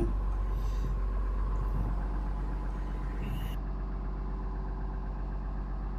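Tata Hitachi EX110 excavator's diesel engine idling steadily.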